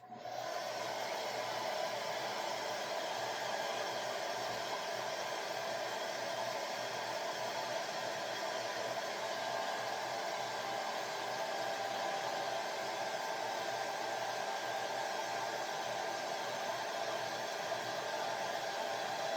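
Handheld hair dryer switched on suddenly, then blowing steadily with an even rushing hiss and a constant motor whine.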